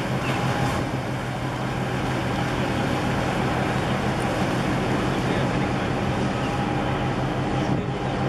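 Steady low drone of a marine engine running, with wind and water noise over it.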